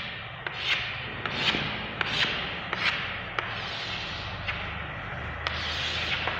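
Chalk scraping across a blackboard in a series of short strokes, each starting with a sharp tap, as straight lines are drawn. The strokes come roughly every half second at first and thin out over the last few seconds.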